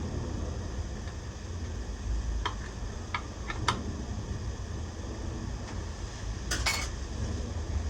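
Scattered light metallic clicks and taps of hand work on the milling machine's DRO scale and reader head mounting: the bolts are being reset to stop the head binding slightly. A closer double click comes about six and a half seconds in, over a steady low hum.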